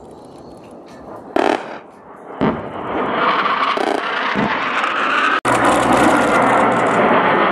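Fighter jet engines of Saab Gripens flying overhead: a broad engine noise swells from about two and a half seconds in, cuts off abruptly about five seconds in, then comes back loud and steady. Two short loud sounds come before it, about one and two seconds in.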